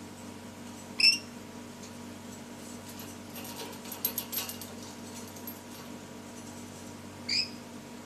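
Rainbow lorikeet giving two short, high-pitched screeching calls, one about a second in and another near the end, with a patch of quieter clicking and rattling in between as it clambers on the wire cage bars.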